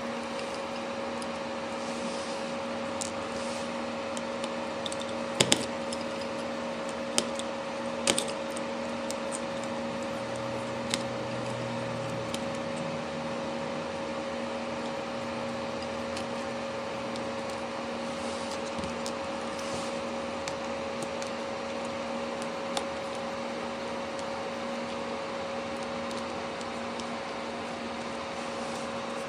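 Scattered sharp clicks of small screwdrivers and tweezers on an iPhone 4's tiny screws and metal frame as the set screws are taken out, a few at irregular intervals, the loudest pair about five and eight seconds in. Under them runs a steady background hum.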